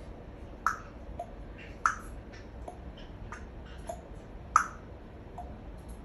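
African grey parrot imitating a ticking clock: a slow series of sharp clicks, alternating louder and softer, about one every half second to second.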